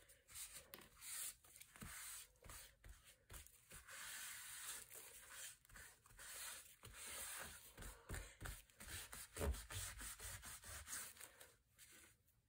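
Paper towel and hands rubbing and smoothing a sheet of 65-pound kraft cardstock glued onto a folio base. It is a faint, scratchy back-and-forth rubbing that presses the liner down and spreads the wet adhesive underneath. It stops near the end.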